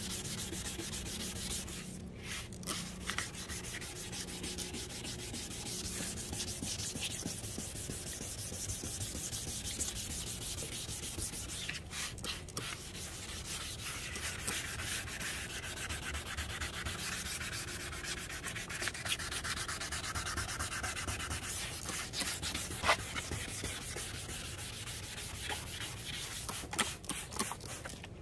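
Sandpaper being worked over a plastic headlight lens: steady scratchy sanding, with short breaks about two seconds in and again around twelve seconds.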